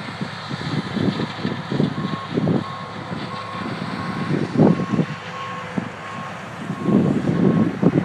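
Reversing alarm on a harvest vehicle backing up, a single-tone beep repeating about twice a second, starting about two seconds in, over a low, uneven rumble of machinery.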